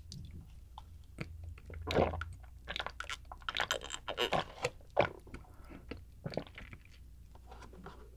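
Chocolate milk drunk from a small paper carton close to the microphone: a run of wet gulps and swallows with lip and mouth clicks. The loudest gulps come about two and five seconds in.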